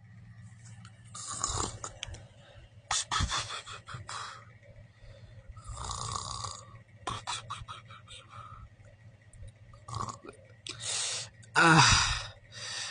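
A person voicing a sleeping puppet's snoring by mouth: a string of uneven snores and snorts, then a louder, falling waking groan near the end.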